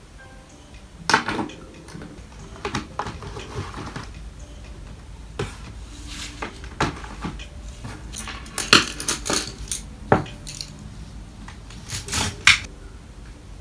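Art supplies being tidied away on a desk: an irregular run of clinks, clacks and knocks as pens, brushes and containers are picked up and set down, busiest in the second half.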